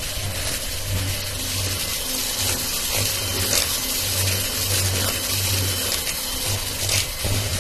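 Electric hand mixer running steadily, its twin beaters whipping butter and powdered sugar in a stainless steel bowl. This is the creaming stage: the butter is turning from yellow to white as it becomes fluffy.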